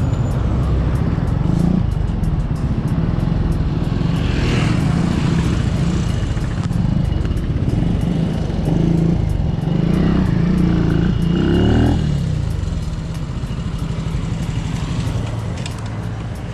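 Benelli TNT 135 small single-cylinder motorcycle engine running under way, its note rising and falling as the rider speeds up and slows, then easing off near the end as the bike slows down.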